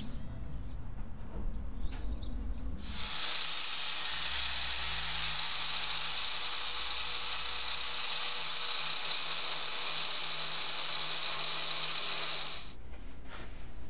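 Handheld angle grinder working a granite countertop slab: a steady high whine and hiss that starts about three seconds in, runs for about ten seconds and then cuts off. Before it there is only a low rumble.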